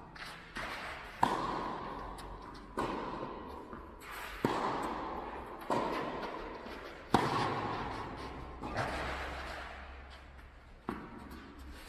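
Tennis rally: rackets striking a tennis ball back and forth, a sharp pop about every one and a half seconds, each hit followed by a long echo in a large hall.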